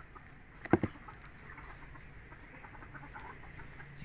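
A metal hand tool knocks sharply twice in quick succession about a second in, then faint light ticks and clicks of handling follow.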